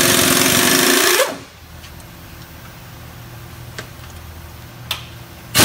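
Handheld cordless power tool driving a transmission bolt on the truck: a loud, fast rattling buzz for just over a second that rises in pitch and stops, followed by a low steady shop hum with a few faint clicks.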